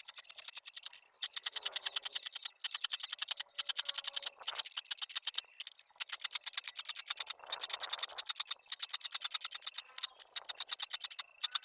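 Repeated strokes of a hand tool worked on a steel hand-saw blade, about one a second, each a rapid rattle of clicks, with faint metallic ringing from the blade.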